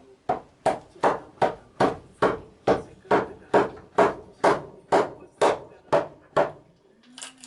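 Hand tool striking wild cherry wood in a steady rhythm, about sixteen sharp blows at roughly two and a half a second, as the wood is carved into a kuksa cup; the blows stop near the end.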